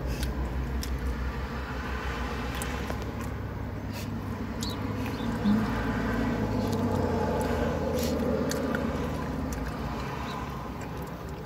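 Steady low hum of a car engine idling, heard from inside the cabin, with chewing and a scatter of small clicks from eating.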